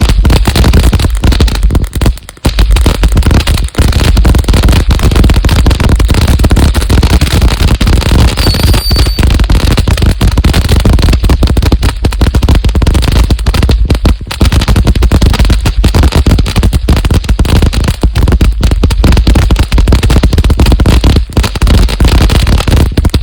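Black Cat Neighbor Hater firework fountain going off: a loud, dense, continuous crackle of rapid pops, with a brief lull about two seconds in.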